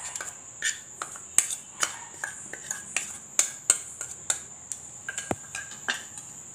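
Metal spoon knocking and scraping against a small bowl as cornflour is tipped out of it into a steel mixing bowl: irregular sharp clinks, about two a second.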